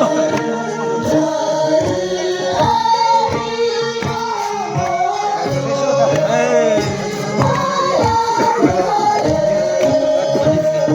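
Music with singing, a melody sung by voices over a steady accompaniment.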